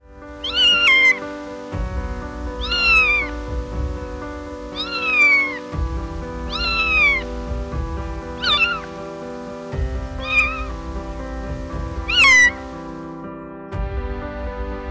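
Kitten meowing about seven times, roughly every two seconds, each meow falling in pitch, over background music of sustained chords with a low bass.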